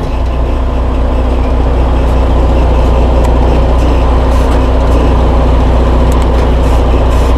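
Freightliner Cascadia heavy truck's diesel engine idling steadily, just after starting, with a strong low hum.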